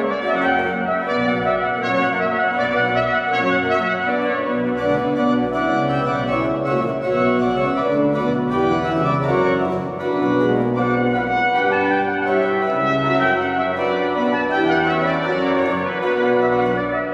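Trumpet and pipe organ playing together, the trumpet carrying a moving melody over held organ chords.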